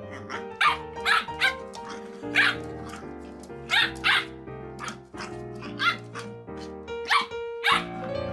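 A puppy barking in short, high yaps, about eight of them at irregular intervals, over steady background music.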